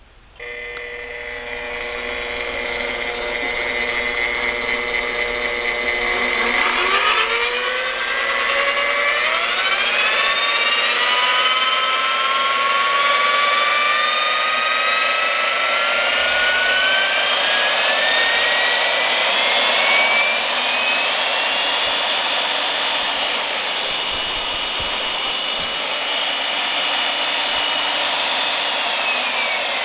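Milwaukee 4208-1 magnetic drill press's electric motor starting up and running free in forward. Its whine climbs steadily in pitch as the variable speed is turned up, holds level for a while, then starts to drop near the end.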